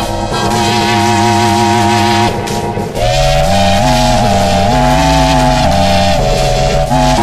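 Music run through a distorting audio effect, loud throughout: stacked, held notes that step up and down in pitch like a melody, with a short dip in level a little after two seconds in.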